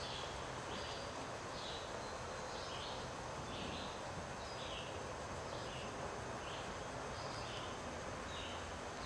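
Woodland ambience: short, high chirping calls from a small animal, repeated about every two-thirds of a second over a steady hiss.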